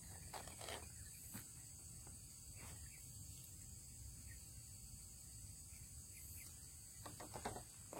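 Quiet outdoor ambience with a faint steady high-pitched insect drone, plus a few light clicks about a second in and again near the end.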